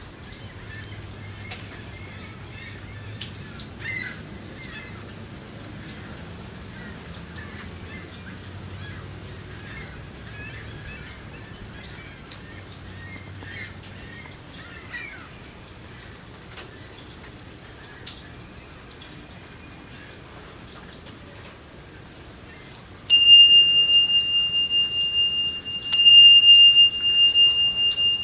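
Steady rain over a lake with scattered bird chirps. About 23 seconds in, a bell is struck twice, about three seconds apart, each stroke ringing on with a high steady tone: the timing bell of the movement practice.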